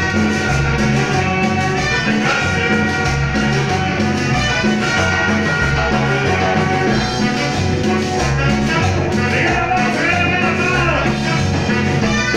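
Live band playing Latin dance music, with congas and bass guitar over a steady, repeating beat.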